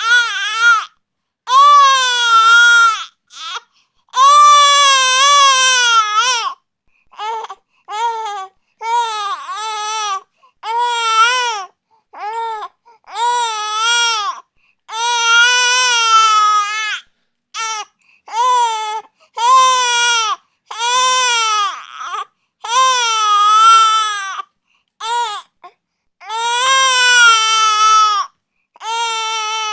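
An infant crying in a string of loud wails, each from half a second to a couple of seconds long, with short breaths in between; each wail wavers up and down in pitch.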